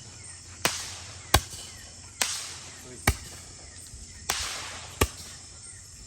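A series of sharp knocks or cracks, about six over six seconds at irregular intervals, several trailing off in a brief hiss.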